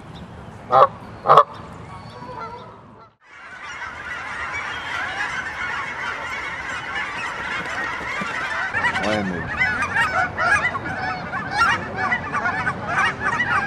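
Geese honking: two loud honks about a second in, then after a brief gap a whole flock honking and calling over one another, growing louder toward the end.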